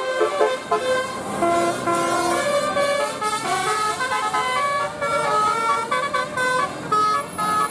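Basuri musical vehicle horn playing a tune: a run of short held notes stepping up and down, several pitches sounding at once.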